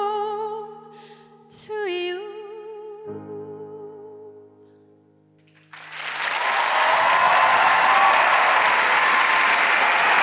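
A woman's held sung notes with vibrato over sustained piano chords, the last chord dying away almost to silence. About six seconds in, the studio audience starts applauding, loud and steady.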